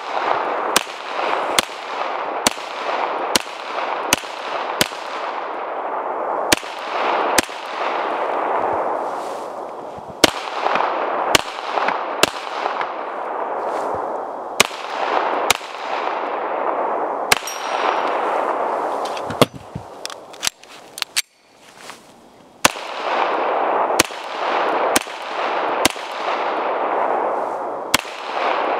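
Beretta M9 9mm pistol fired shot after shot at a steady pace of roughly one a second, each sharp report trailing off in a long echo. There is a short break about two-thirds of the way through before the shots resume.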